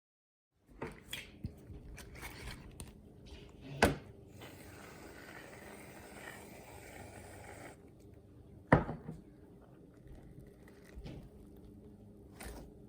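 Slime being worked by hand, with soft squishing and scraping. There are two sharp knocks, one about four seconds in and another about nine seconds in.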